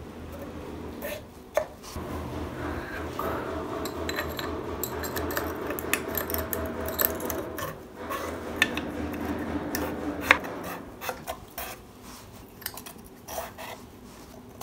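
Steel valve tappet cups clinking and rubbing as they are dropped by hand into their bores in a K9K 1.5 dCi cylinder head, with scattered sharp metallic clicks. A steady low hum runs underneath until about ten seconds in.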